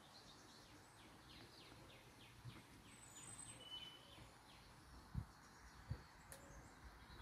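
Faint birdsong in a quiet garden: a quick series of about ten short chirps, about four a second, in the first three seconds. Two soft footstep thumps follow later on.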